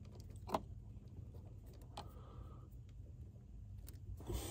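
A few faint plastic clicks and rustles of a hand working the wiring connector behind a car's accelerator pedal, over a low steady background rumble.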